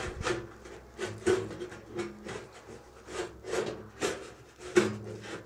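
Rusty sheet-steel lid of a small hot smoker being worked along the grooves of the box: repeated short metal scrapes and knocks, about two a second, as its folded edges miss and catch in the grooves.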